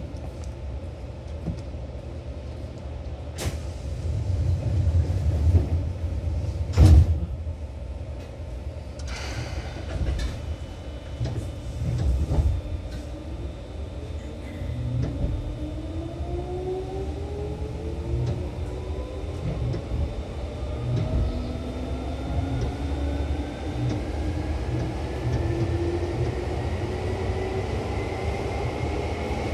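Seibu 2000 series electric train with field-chopper control, heard from inside a car: over a low rumble come two knocks about three and a half and seven seconds in, the louder second one fitting the sliding doors shutting, and a short air hiss follows. From about twelve seconds in, the traction motors whine in several tones rising steadily in pitch as the train pulls away and accelerates.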